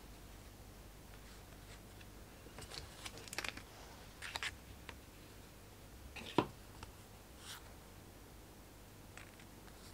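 Paper prints and a clear plastic sleeve being handled and laid down on a table: a few soft, scattered rustles and light clicks, with one sharper tap about six seconds in, over a faint low hum.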